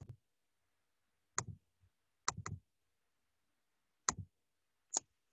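Computer mouse clicks: separate sharp clicks about a second apart, with a quick double click about two seconds in.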